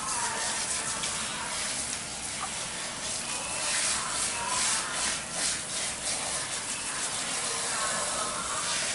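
Handheld salon shower sprayer running water over hair into a ceramic backwash basin as the hair is rinsed: a steady hiss of spray that turns louder and uneven for a couple of seconds in the middle.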